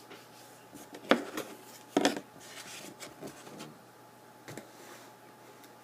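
Handling noise: two sharp knocks or clacks about one and two seconds in, with rustling between, and a softer knock later.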